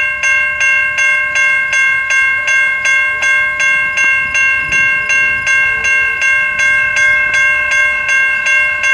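Railroad grade-crossing bell ringing in quick, even strokes, about three a second, each strike decaying before the next: the crossing warning is active for an approaching train.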